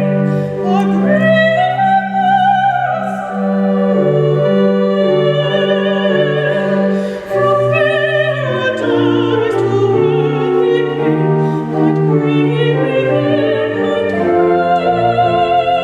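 A classically trained soprano singing in operatic style with a marked vibrato, over held notes of an instrumental accompaniment.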